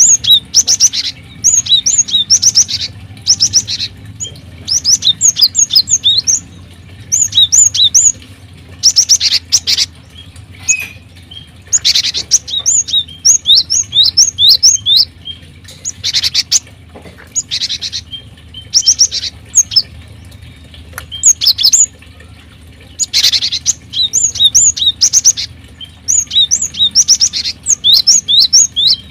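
Small aviary birds chirping in rapid, high-pitched runs of quick notes, coming in bursts every second or two with short pauses between.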